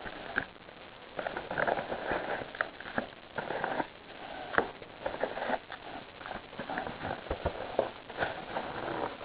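A trading card box and its wrapped packs being handled: irregular crinkling and rustling with many small clicks and knocks.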